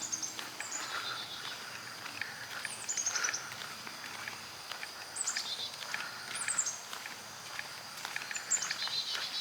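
A songbird singing short phrases of high, quick notes that step down in pitch, repeated about every second or two, over a steady high-pitched drone of insects.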